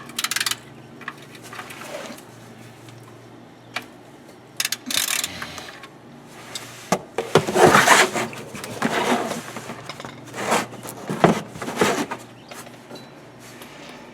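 Irregular scraping, clattering and a few knocks of tools and an oil drain pan being handled to drain the engine oil, loudest in clusters past the middle. A faint steady low hum runs underneath.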